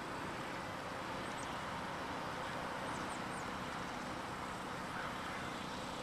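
Steady outdoor background noise, an even hiss and rumble, with a few faint high chirps about one and a half and three seconds in.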